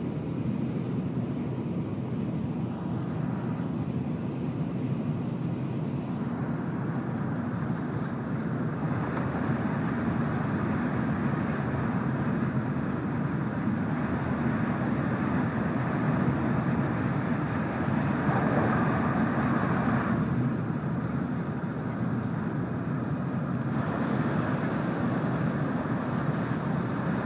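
Steady running noise of an N700-series Shinkansen at speed, heard from inside the passenger car: a continuous rumble and rush of wheels and air that grows a little louder about nine seconds in and shifts in tone a few times.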